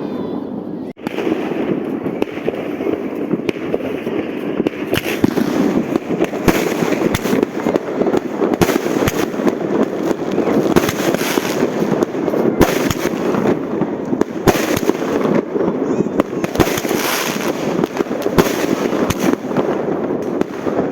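Fireworks bursting without pause: many overlapping bangs and crackles from several directions, with a brief break about a second in.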